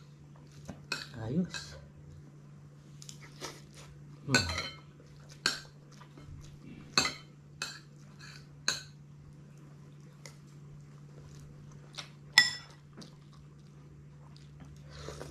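Spoon clinking and scraping against a white ceramic soup bowl while eating porridge: about a dozen sharp, irregularly spaced clinks, the loudest one near the end.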